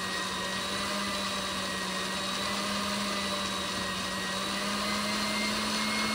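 Electric mixer running steadily on high speed, beating raw eggs in a bowl.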